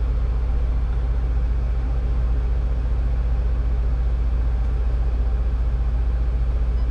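Steady low engine drone heard from inside the cab of a Mercedes Sprinter-based Winnebago Boldt camper van as it reverses slowly at low revs.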